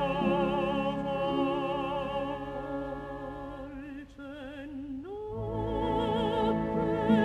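Operatic singing with strong vibrato over orchestral accompaniment, the voice moving to a new held note about five seconds in.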